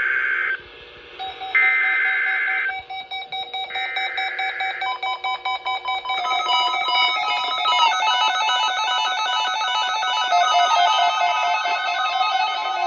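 NOAA Weather Radio Emergency Alert System tones for a practice tornado warning: three bursts of screechy SAME header data, each about a second long, then steady alert tones joined about six seconds in by several overlapping, alternating alarm tones from more than one weather radio.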